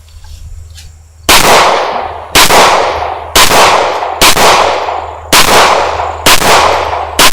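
.40-calibre handgun fired seven times in a steady string, about one shot a second. Each loud shot trails off in a long echo.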